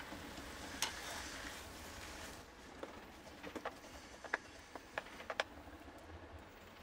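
Chicken and vegetables sizzling faintly in a frying pan as they are stirred with a spatula. From about halfway, a string of light clicks and taps as the spatula knocks against the pan.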